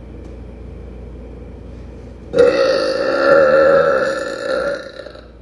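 A woman's long, loud, deliberate burp starting a little over two seconds in and lasting about two and a half seconds before trailing off.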